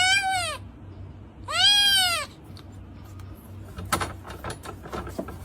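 A cat meowing twice, each meow rising then falling in pitch: once at the start and again about a second and a half in. A few faint taps follow.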